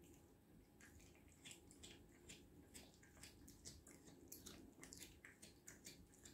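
Cat chewing raw fish giblets: a faint run of chewing clicks, about three a second, starting about a second in.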